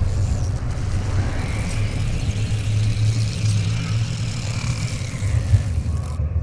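Intro sound effect: a deep steady rumble with a rushing, jet-like hiss over it. The hiss cuts off suddenly near the end.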